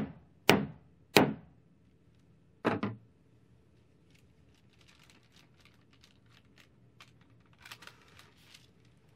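Hammer blows on plant material through baking paper on a cutting board: five sharp thunks in the first three seconds, the last two in quick succession. After that come faint rustles as the baking paper is handled and peeled back.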